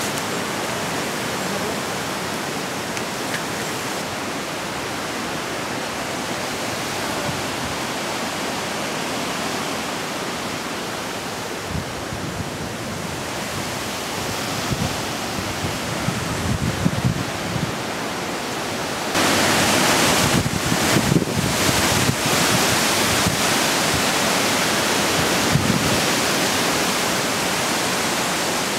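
Gusty wind rushing through trees and buffeting the microphone as a steady rush. About two-thirds of the way through it suddenly grows louder, with uneven hard gusts.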